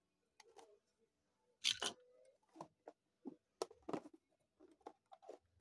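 Packaging being worked open by hand: irregular small clicks and rustles, with one sharper crackle about a second and a half in.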